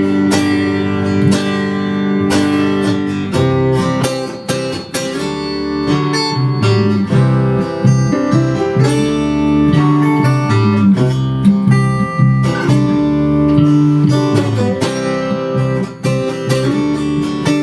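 Acoustic guitar strummed in a steady instrumental passage, with no singing.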